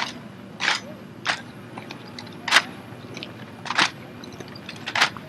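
Drill rifles being handled in a rifle drill, about six sharp slaps at uneven intervals of roughly a second.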